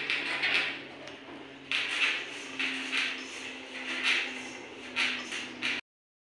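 Hands mixing and kneading flour dough in a stainless steel bowl: repeated rubbing, squishing strokes, with the metal bowl knocking and scraping on the steel worktable. The sound cuts out for a moment near the end.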